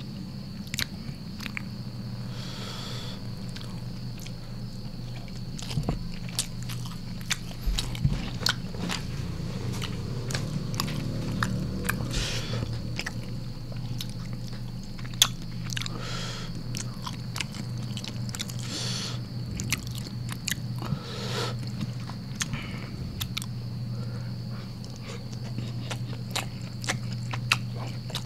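Close-miked chewing and mouth sounds of a person eating rice with beef rendang and squid by hand: frequent small wet clicks and smacks over a steady low hum.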